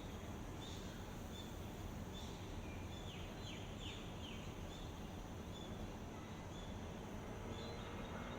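Steady background noise with a low rumble, and faint bird chirps scattered over it, including a quick run of downward-sweeping chirps about three seconds in.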